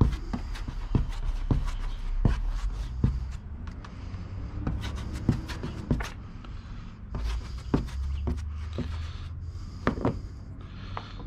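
Small brush dabbing and stroking fibreglass resin onto a plastic kayak hull: irregular light taps and scrapes, about one a second, over a steady low rumble.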